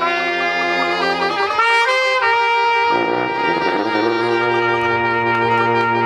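Traditional jazz band of trumpet, saxophone, sousaphone and banjo playing; after a moving phrase the horns settle onto long held notes about two seconds in, and a low sousaphone note comes in beneath them about four seconds in.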